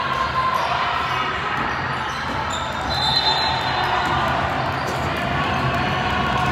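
A basketball bouncing on a hardwood gym floor during play, with voices from players and the crowd echoing in a large gym. A brief high squeak comes a few seconds in.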